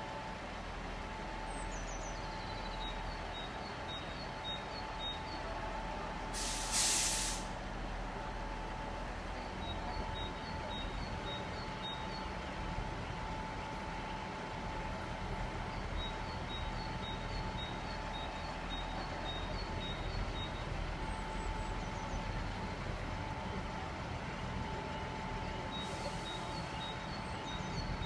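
Class 158 Express Sprinter diesel multiple unit idling at a standstill, a steady low engine hum with a constant droning tone. About seven seconds in, a short sharp hiss of compressed air from its air brakes.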